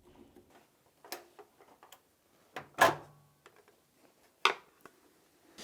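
Washing machine door and hinge being lifted away from the machine: a few scattered light clicks and knocks of plastic and metal, the loudest about three seconds in.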